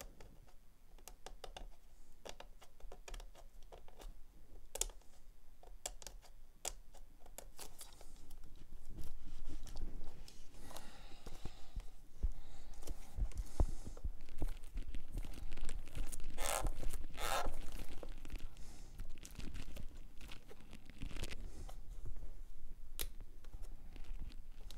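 A sealed cardboard camera box being torn open by hand: scratching, crinkling and small clicks that grow busier about a third of the way in, with two sharp tears about two thirds through.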